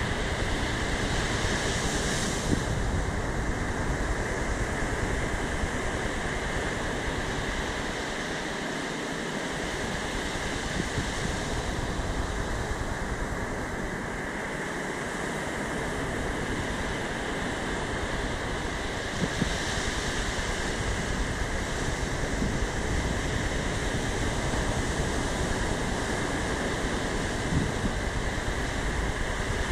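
Ocean surf breaking and washing up a sand beach in a steady rush, the hiss swelling about every nine seconds as a wave runs in. Wind rumbles on the microphone underneath, easing twice in the middle.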